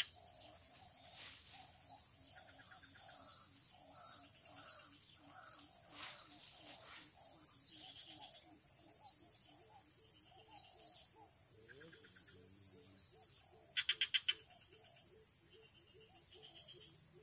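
Outdoor ambience of calling animals: a low call repeated a few times a second under a steady high hiss. About 14 seconds in comes a loud, quick run of four sharp chirping notes.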